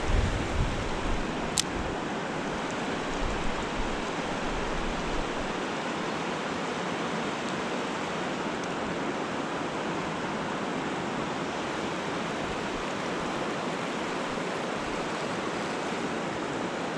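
Steady rushing of a fast-flowing river running over riffles, with wind buffeting the microphone in the first few seconds.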